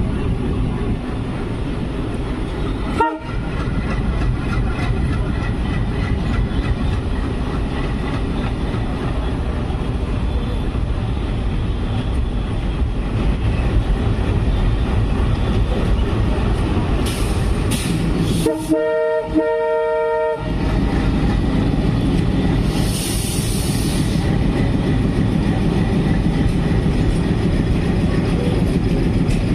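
WDM3D diesel locomotive running, with a steady rumble and rail clatter throughout. Its horn gives a brief toot about three seconds in, and a longer blast of about two seconds near two-thirds of the way through.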